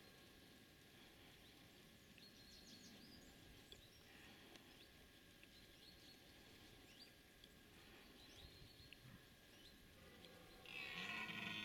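Faint scattered high bird chirps over a near-silent background, then about a second before the end a red deer stag starts its rutting bellow, a loud low call with a rising and falling pitch.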